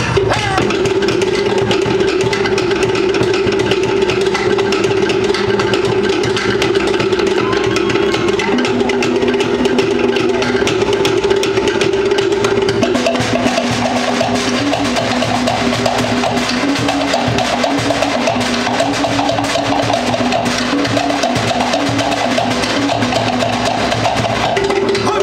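Polynesian percussion music: fast, steady drumming with sharp wooden strikes, over a held pitched note. About halfway through, the held note gives way to a lower line that moves in steps.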